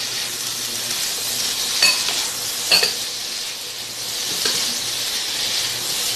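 Beef and vegetables sizzling in a non-stick wok as they are tossed with a wooden spatula. The spatula knocks sharply against the pan about two seconds in and again a second later, with a lighter knock near the end.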